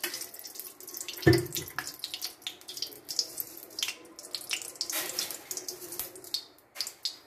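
Cooking oil heating in an iron karahi on a gas stove, crackling and spitting in small irregular pops, with one dull knock about a second in.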